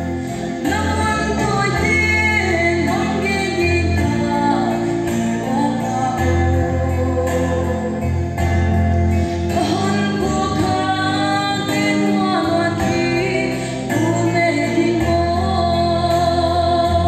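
A woman singing a gospel song into a microphone over an amplified instrumental accompaniment with held bass notes that change every couple of seconds.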